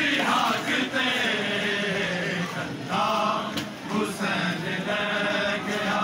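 A group of men chanting a Punjabi nauha, a Shia lament for Imam Hussain, in unison.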